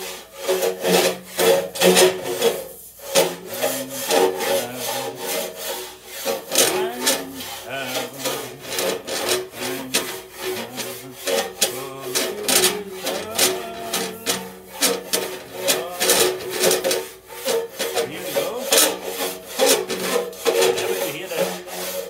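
Long-handled rasp scraping solder drips from the inside of a metal organ pipe as the pipe is worked back and forth and turned over it. Rapid, harsh, repeated rasping strokes, with the pipe body ringing in a few steady low tones underneath.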